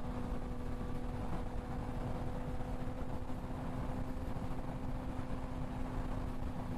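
Suzuki GSX-R sportbike's inline-four, fitted with an aftermarket exhaust, holding one steady note at highway cruising speed, under a thick rush of wind noise.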